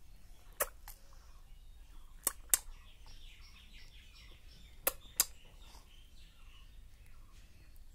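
Three pairs of sharp clicks, each pair about a third of a second apart. From about two seconds in, birds chirp in quick, even repeats in the background.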